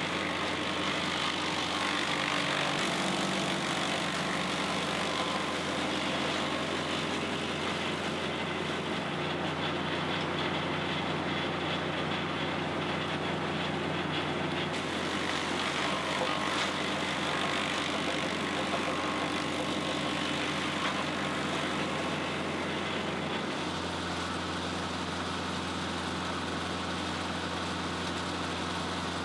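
Diesel engine of a Bandit Model 90XL brush chipper running steadily. Its tone shifts slightly about halfway through and again near the end.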